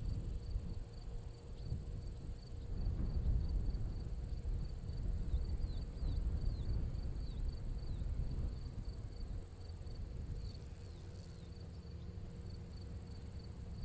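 Insects chirping steadily in a fast, even high-pitched pulse, with a few short falling bird chirps in the middle, over a low rumble. Near the end, the faint hum of the Cessna 150F's engine comes in as the plane closes on the runway on final approach.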